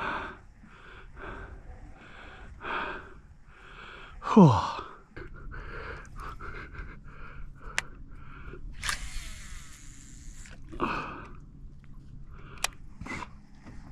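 A fishing reel's drag buzzing for about a second and a half as a hooked fish strips line, shortly before the fish breaks the angler off. Earlier, a loud exhaled "whew".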